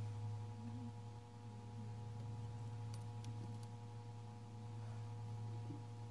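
Steady low electrical hum with a few faint, thin higher tones over it, and now and then a faint light tick.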